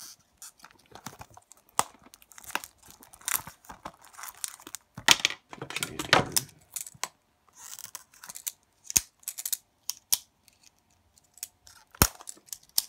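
Plastic shrink-wrap being torn and peeled off a Blu-ray case: irregular crinkling and tearing, loudest around five to six seconds in, with a few sharp clicks.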